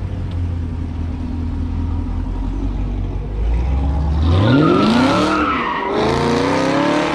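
Chevrolet Camaro SS's 6.2-litre V8, through a Borla ATAK exhaust with Kooks headers, running at a low, steady idle, then accelerating hard about four seconds in. The pitch rises, drops once at an upshift and rises again, louder than the idle.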